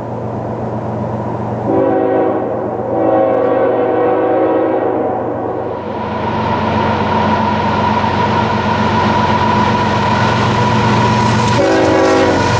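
Union Pacific GE AC45CCTE diesel freight locomotives approaching under power: the air horn sounds a short blast and then a long one, and, after a pause in which engine hum and rail noise grow as the train nears, starts another blast near the end.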